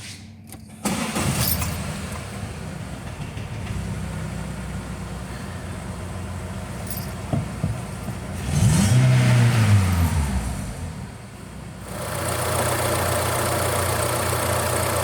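Seat Cordoba 1.4 16-valve petrol engine starting about a second in and then idling. It is revved once in the middle, rising and falling, and runs louder from about twelve seconds in. The spark plugs have just been changed to cure a random misfire, and the engine now runs a whole lot better.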